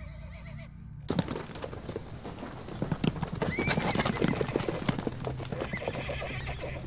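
Hoofbeats of several horses galloping, starting suddenly about a second in and running on as a rapid clatter, with a horse whinnying midway.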